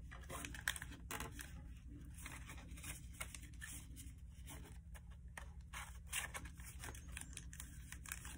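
A sheet of paper being folded and creased by hand, squash-folding a flap flat: faint, irregular crinkling and rustling.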